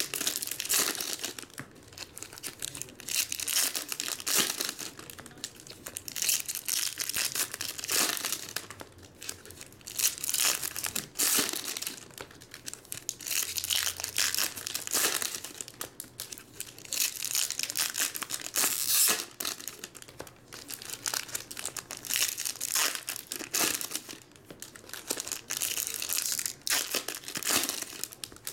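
Foil trading-card pack wrappers of 2019 Topps Star Wars Skywalker Saga packs crinkling and tearing as the packs are ripped open by hand, in irregular bursts of crackle.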